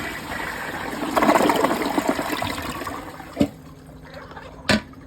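Kohler Wellworth toilet's water running and trickling at the tail of a flush, swelling just over a second in and then dying away. Two sharp knocks follow.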